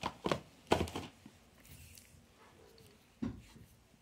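A few short clicks and light knocks of objects being handled on a hard surface: a quick cluster in the first second, then a single knock about three seconds in.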